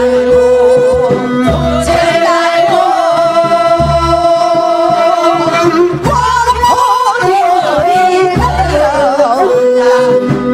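A group of women singing a Korean folk song (minyo) through microphones over an accompaniment. They hold long notes with a wavering, ornamented pitch, and the melody steps up about a second and a half in.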